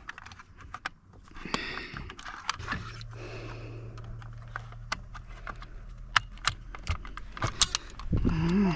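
Car keys jangling and clicking in a newly replaced Audi ignition lock as it is tested, with a steady low hum from the car coming on about two and a half seconds in as the ignition switches on.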